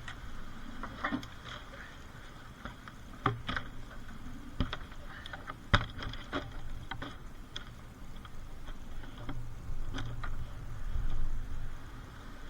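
Wind buffeting the microphone in gusts, with a stronger gust near the end, and scattered sharp clicks and knocks.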